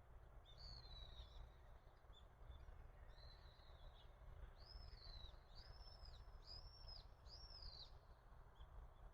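Faint bird calls over a low steady rumble: a few short chirps, then a run of four arching notes about one a second.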